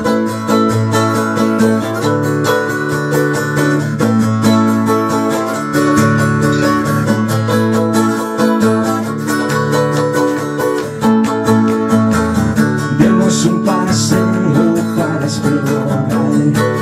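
Instrumental passage of strummed acoustic guitars over a walking upright-bass line, played live.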